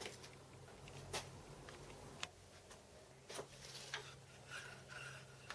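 A few light, separate metallic clicks and taps, about a second apart, as a steel plate and tools are handled while fitting the plate's contact, over a faint low hum.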